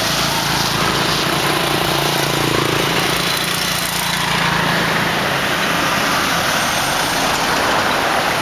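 Motorbike engine running steadily close by, its hum fading out about halfway through, over a constant rushing road noise.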